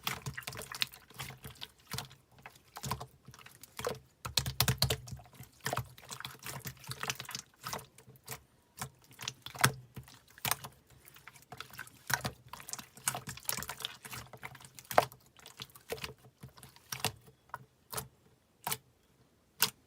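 Slime being played with by hand, giving irregular wet clicks, pops and squelches, with a few louder snaps.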